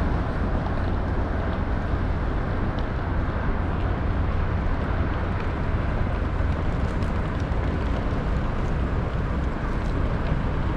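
Steady city street ambience: a continuous low traffic rumble with faint scattered ticks.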